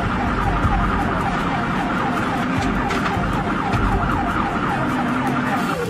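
Emergency vehicle siren sounding a fast, repeating falling yelp, over the low rumble of road and engine noise.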